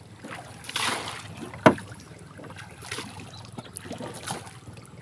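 A small wooden-and-fibreglass boat being pushed along with a long bamboo pole, the pole swishing and splashing as it dips into the water. There is one sharp knock about a second and a half in and a few fainter taps later.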